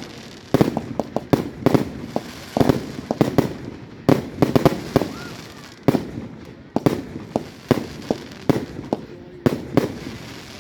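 Fireworks display: a rapid, irregular string of loud bangs and cracks, dozens of them, with no let-up.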